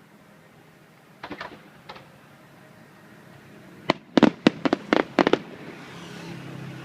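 Aerial fireworks shells bursting overhead: a few scattered bangs, then a rapid volley of loud explosions about four seconds in, followed by a rising hiss of crackle.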